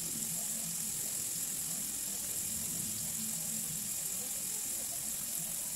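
Garlic, onion and tomato sautéing in oil in a metal wok: a steady, even sizzle.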